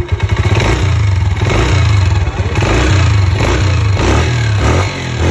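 Honda 125 motorcycle's single-cylinder four-stroke engine being revved, the throttle blipped up and down again and again, loud.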